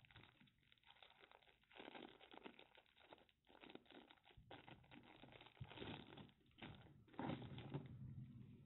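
Clear plastic bag crinkling as a radio battery pack is handled inside it, in faint irregular bursts that grow louder about two seconds in and again about seven seconds in.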